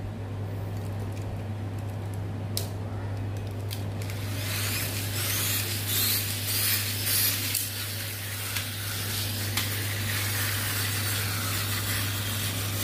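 Pull-back motors of two toy battle cars whirring, with a high, wavering gear whine and wheels scrubbing on a tile floor, as the cars are released and shove against each other from about four seconds in. A few light clicks come before it, as the toys are handled and set down.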